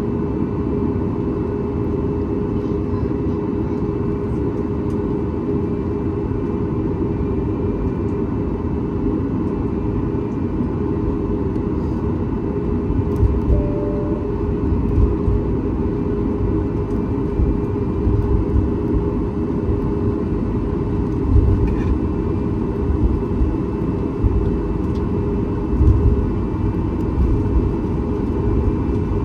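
Cabin noise inside a Boeing 737 MAX 8 with its CFM LEAP-1B engines running: a steady rush with a constant hum, and low rumbling bumps that grow stronger and more frequent from about halfway through.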